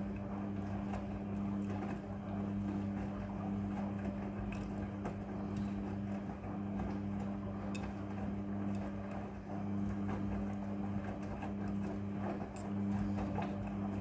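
Midea front-loading washing machine in its wash cycle. The motor hums steadily while the drum turns, and the wet clothes are lifted and dropped with a sloshing noise and faint soft knocks.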